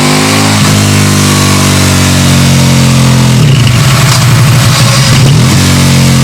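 KTM 1290 Super Duke R's V-twin engine running through a Storm GP slip-on exhaust: idling, with a short throttle blip about half a second in and a longer rev from about three and a half seconds in, then settling back to idle.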